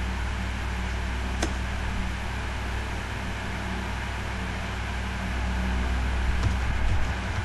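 Steady low hum and hiss of background noise, with one sharp click about a second and a half in.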